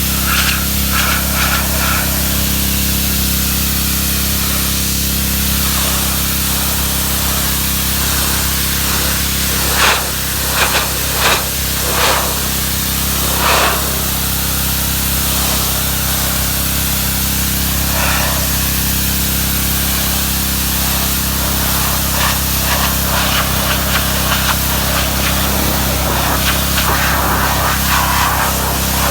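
Pressure washer running steadily, its high-pressure water jet spraying against a truck's body with a continuous hiss over a low machine hum. A few brief louder bursts of spray come about ten to fourteen seconds in.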